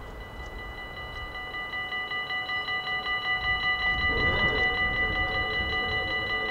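Dutch level-crossing warning bells starting up as the red lights come on: a rapid, regular high-pitched ringing, joined over the next couple of seconds by lower-pitched bells, the whole growing louder. About four seconds in a low hum swells as the boom barrier starts to lower.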